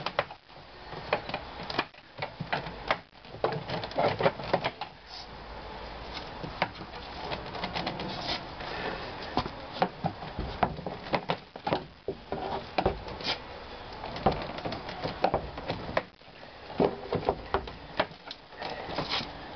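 Plastic inner door trim panel of a 1995 Ford Escort being pried away from the door with a panel remover tool: irregular clicks, knocks and scraping as the hidden retaining clips are worked loose.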